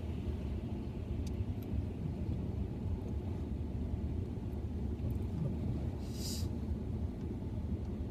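Steady low rumble inside a car, with a couple of faint clicks early on and a short hiss about six seconds in.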